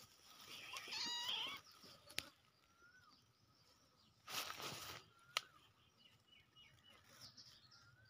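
White kitten mewing once, a short high cry about a second in. Two sharp clicks and a brief burst of rustling noise follow.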